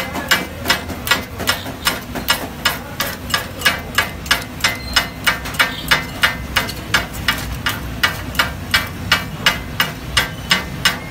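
Taka-tak chopping: two steel blades strike a hot iron tawa in a fast, even clatter of metal on metal, about three strikes a second, as they chop organ meat for kata kat. A steady low rumble runs beneath.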